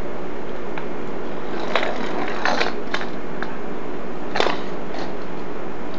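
A few short scrapes and clicks of toy car wheels on a hardwood floor, the loudest about two and a half seconds in, over a steady hiss and hum from the camcorder.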